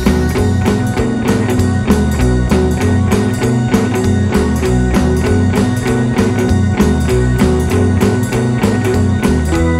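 Band music with guitar, a moving bass line and a steady drum beat.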